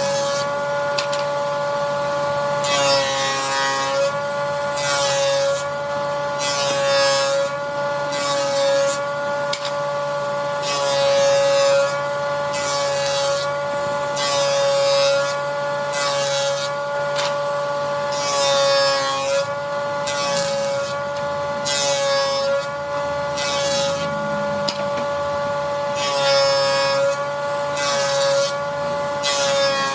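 Electric woodworking power tool running with a steady high whine, cutting into wood in repeated strokes about every second or so; each pass adds a rasping hiss and slightly loads the motor, dropping its pitch.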